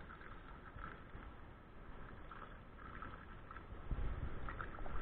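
Faint low rumble of traffic from the busy overpass, growing louder about four seconds in.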